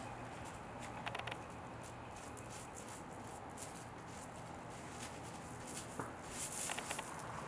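Siberian husky puppy digging in gravel and soil with its front paws: a run of quick scratching, scuffing strokes, with louder flurries about a second in and again near the end.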